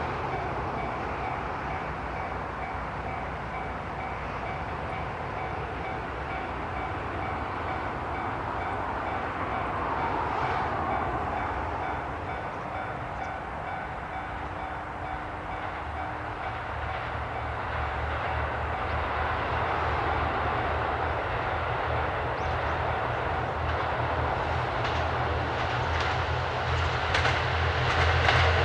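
JR Kyushu KiHa 183-1000 diesel railcar approaching, its low engine rumble and running noise growing steadily louder, with a few sharp ticks near the end.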